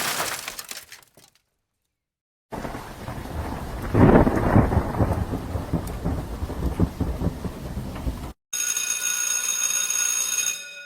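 Thunder rumbling over rain, loudest about a second and a half after it begins, then cutting off abruptly. It is preceded by a short noisy burst that fades out within the first second, and followed by a separate steady, ringing sound effect with several high pitches lasting about two seconds.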